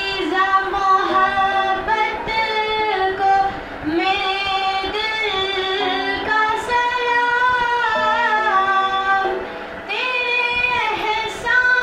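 A girl singing an Urdu nazm in a melodic, gliding voice, over an instrumental backing of long held notes that change every second or two.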